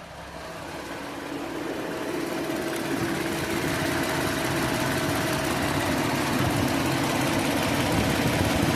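Supercharged V6 of a 2018 Audi Q7 idling steadily, growing louder over the first few seconds and then holding even.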